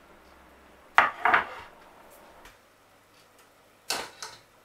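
Kitchen utensils clattering. There are two sharp knocks about a second in. Near the end a metal fork clinks twice against a saucepan as it lifts boiled new potatoes out.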